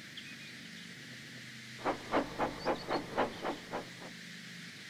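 Steam locomotive chuffing: about nine quick puffs, roughly four a second, starting about two seconds in and stopping about two seconds later, over a faint steady hum.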